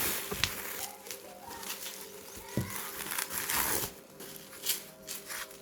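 Parcel packaging being handled: crinkling of the wrapping and cardboard, irregular rustles with a few light knocks.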